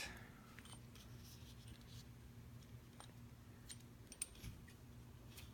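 Near silence over a low steady hum, broken by a few faint, sharp metallic clicks from handling an aluminium-bodied American 1205 padlock and its picking tools.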